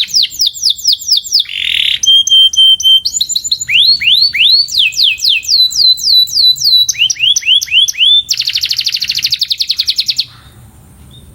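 Domestic canary singing a string of varied phrases: rapid repeated falling whistled notes, a short buzz, a held note, rising slurred notes, then a fast buzzy trill. The song stops abruptly about ten seconds in.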